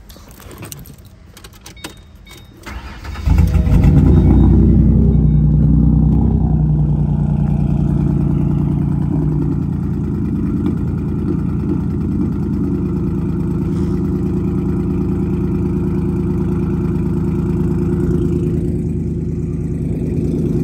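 Ford Mustang's 4.0-litre V6 starting about three seconds in, after a few faint clicks. It flares as it catches, then settles into a steady idle through its dual exhaust.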